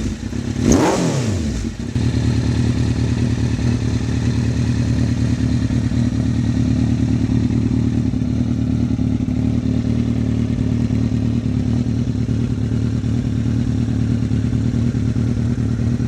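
2003 Kawasaki Z1000's inline-four engine breathing through Two Brothers M2 V.A.L.E. slip-on mufflers: one quick rev that climbs and falls back about a second in, then a steady idle. Pretty loud, with a deeper, bassier tone.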